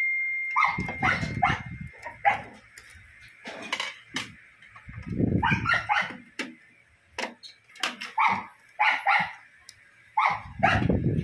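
A dog barking in short, repeated calls that come in clusters.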